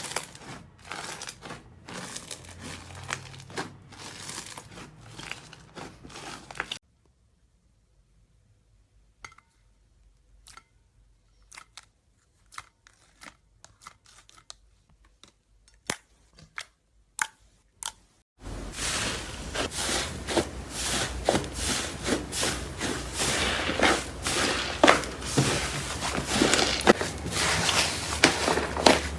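Slime being squeezed and pressed, giving sticky clicks, pops and crackling. In a quiet stretch in the middle there are only scattered clicks; after it the crackling turns dense and louder.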